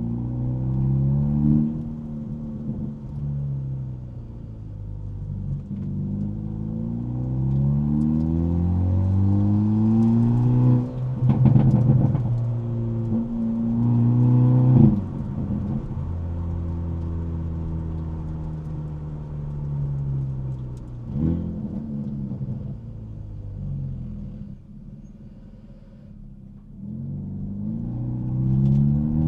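Hyundai Elantra N's turbocharged four-cylinder exhaust pulling up through the revs several times, the pitch dropping back at each gear change, with sharp pops and bangs on shifts and lift-off, then settling to a steady cruise, easing off and pulling again near the end. Heard muffled from inside the car's trunk.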